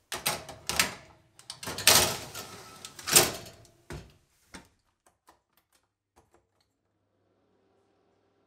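Kitchen oven being loaded: the oven door opening and shutting and a baking tray going in, a series of knocks and clattering scrapes, loudest about two and three seconds in and over by about five seconds.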